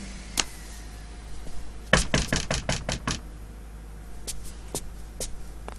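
Knocking on a wooden front door: a quick run of about seven knocks, followed by a few scattered lighter taps.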